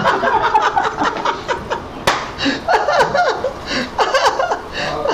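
A man laughing hard in repeated short bursts that fall in pitch, with a sharp smack about two seconds in.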